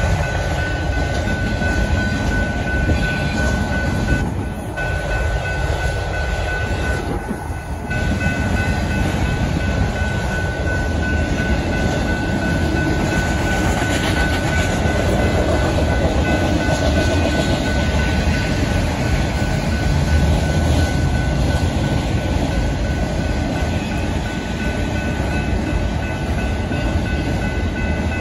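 Freight train of autorack cars rolling past: a steady loud rumble and clatter of steel wheels on rail, with a thin high tone running through it.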